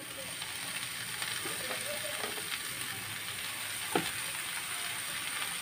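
Steady sizzling from a pan of frying onions as handfuls of chopped amaranth greens are added. There is a single sharp knock about four seconds in.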